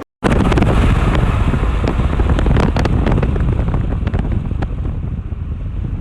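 Strong storm wind buffeting the microphone: a loud, heavy rushing rumble with scattered sharp clicks.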